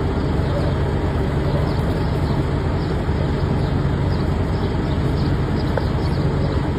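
Steady road-vehicle noise with a low hum.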